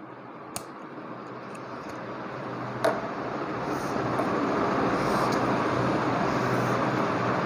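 Road traffic noise that swells over the first four seconds and then holds steady, with a faint low hum under it. Two light clicks come about half a second and three seconds in.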